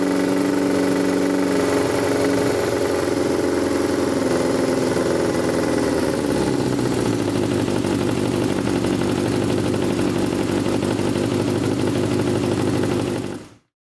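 Yamaha XJR400's air-cooled inline-four engine running. Its revs drop a couple of seconds in, then it settles into a steady lower idle. The sound stops abruptly just before the end.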